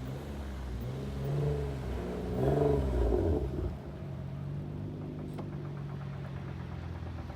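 Infiniti G35's VQ35DE V6 exhaust, loud through test pipes and a Bosal catback, revs up and falls back twice, the second and louder rev about two and a half seconds in. It then settles to a steady lower drone, with a single click a little after five seconds.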